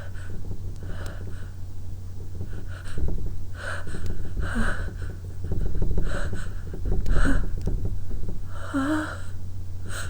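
A woman sniffing and taking short gasping breaths, about seven of them, while her nose is irritated with lemon balm leaves to bring on a sneeze: the build-up before a sneeze.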